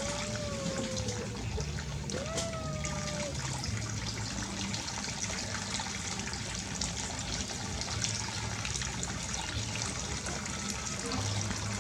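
Running water trickling steadily, with two short wavering calls in the first three seconds.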